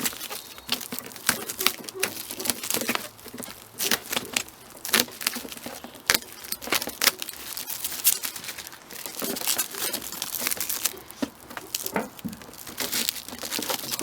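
A mailed package being opened by hand: irregular crinkling, rustling and tearing of packaging, with scattered clicks and small knocks.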